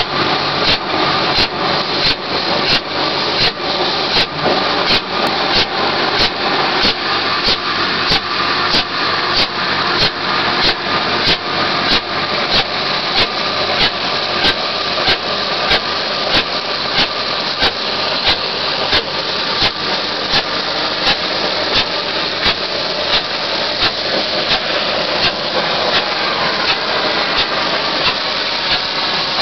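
Ocmer OCS-6896-D shotcrete rig running, its machinery knocking in a regular rhythm about twice a second over a steady engine noise. Near the end the knocking fades and a steadier rushing noise remains.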